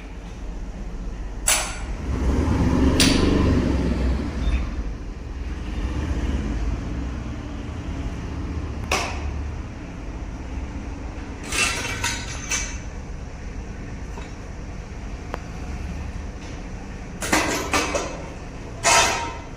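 Scattered knocks and clanks from power loom parts being handled and taken apart, over a steady low rumble that swells a few seconds in. A cluster of knocks comes near the end.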